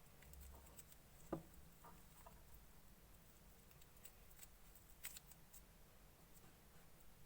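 Faint clicks and small pops of clear slime being squished and mixed by hand, with one louder pop about a second in and another about five seconds in.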